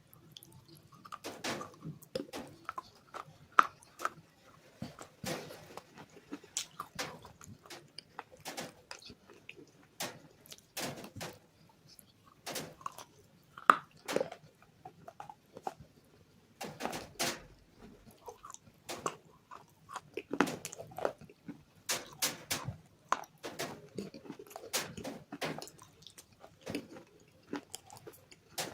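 Close-miked biting and chewing of hard, crunchy bars coated with a white paste: irregular sharp crunches and snaps with wet chewing between them, two especially loud bites.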